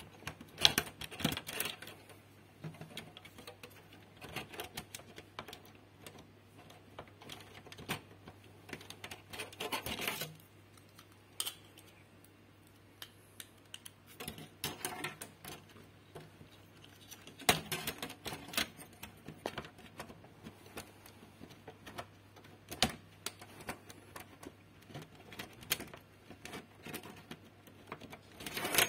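Irregular clicks, taps and short clattering rattles of hands handling computer hardware, over a faint steady low hum.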